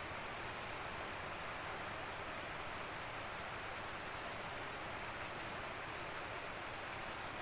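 Steady rush of a fast-flowing river, an even hiss of water with no distinct events.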